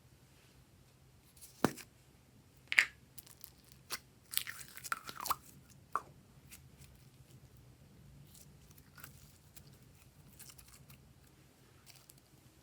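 Glossy slime being handled and mixed by hand, giving sharp sticky clicks and crackles. There are a few separate clicks, a busier run of crackling a little after the middle, then only faint ticks.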